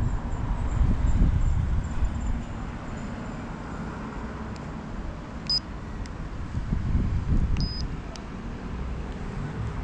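Bicycle speedometer beeping as its buttons are pressed during setup: a short high beep about halfway through and a slightly longer one about two seconds later, with a few small clicks, under a steady low rumble.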